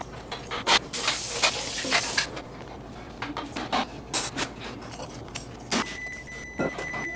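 Small objects clinking and knocking on and off, with a hiss lasting about a second and a half near the start and a steady high-pitched beep in the last second or so.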